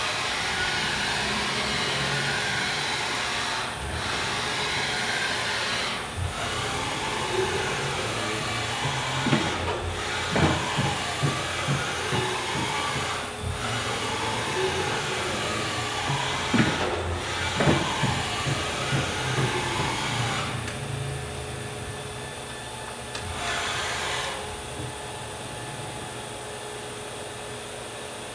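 STYLE BT-2000 CNC machining centre running, a steady whirring hiss with motor whines that sweep up and down in pitch. There are bursts of clunks through the middle, and it is quieter over the last several seconds.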